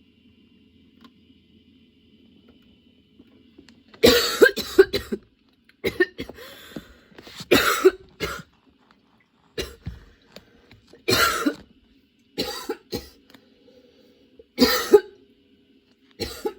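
A young woman coughing in a prolonged fit: quiet at first, then from about four seconds in, bursts of several coughs come every second or two.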